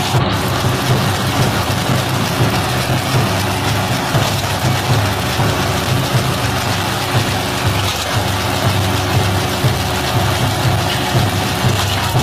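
Combine harvester engine running steadily at a constant speed.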